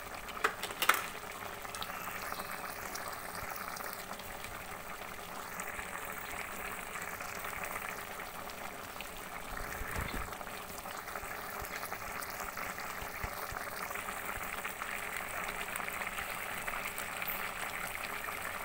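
A pot of crab, shrimp and sausage stew boiling in its sauce: a steady bubbling sizzle. There is one sharp click a little under a second in.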